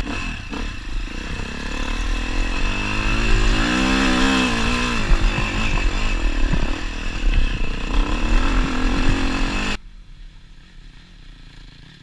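KTM dirt bike engine running hard on a trail climb, its revs rising and falling with throttle and gear changes, mixed with rough wind and ride noise. A little before the end it cuts off suddenly, leaving only a much quieter low background sound.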